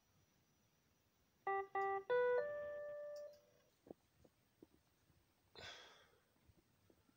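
A keyboard plays a short three-note phrase: two short notes, then a higher, longer note that fades out. A few seconds later there is a brief rustle.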